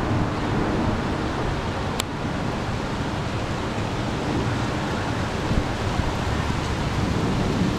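Gusty storm wind blowing across the microphone: a steady rushing noise with irregular low buffeting. A brief high click about two seconds in.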